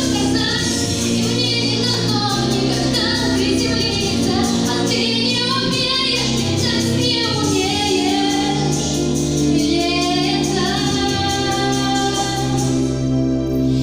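A woman singing a song live over a sustained instrumental accompaniment with held low notes.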